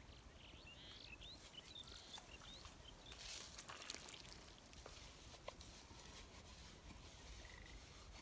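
Quiet outdoor ambience with a few faint, short chirps in the first couple of seconds, then light scattered clicks and rustling.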